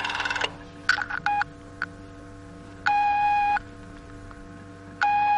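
Telephone call sound effect: a couple of clicks on the line, then the ringing tone in the earpiece, two steady beeps of about three-quarters of a second each, about two seconds apart, as the call waits to be answered.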